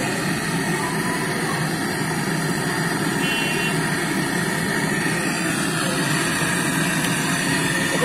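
Handheld gas-canister torch burning with a steady hiss as its flame heats a copper tube joint on a refrigerator compressor for brazing.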